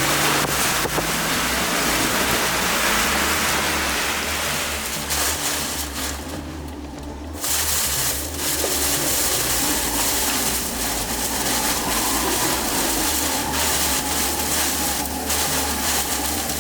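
Hurricane-force wind and driving rain from Hurricane Ian's eyewall: a loud, steady rush that dips for about a second and a half around six seconds in, then comes back.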